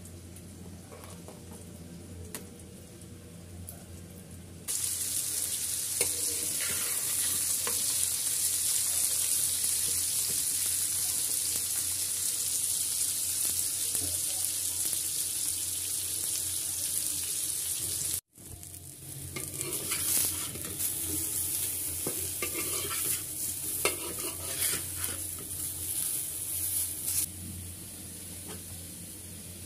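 Pieces of green tomato sizzling as they fry in hot oil in a wok. The sizzle starts suddenly about five seconds in and continues after a brief break. Later it comes with the clicks and scrapes of a spatula stirring, and it dies down near the end.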